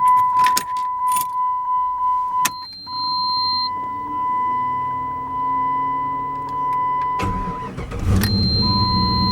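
1997 Jeep Cherokee being started with the key: a steady high warning tone sounds while the starter turns the engine over, and about seven to eight seconds in the engine catches and runs. The Jeep has sat unstarted for over a week.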